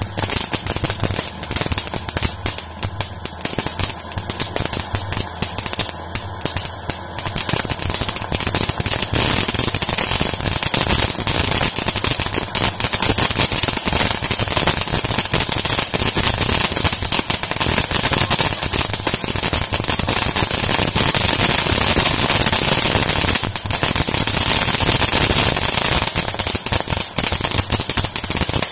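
Consumer fireworks crackling and popping in rapid, continuous volleys, a crackling fountain among them. The popping thickens and gets louder about seven seconds in.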